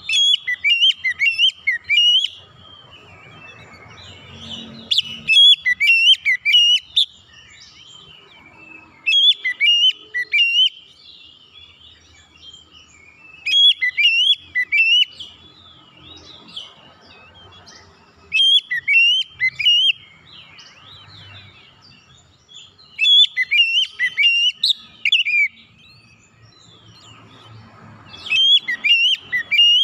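Oriental magpie-robin (kacer) giving its calling screech: loud bursts of rapid, sharp up-and-down notes, each lasting a second or two and coming about every four to five seconds, with softer warbling between them.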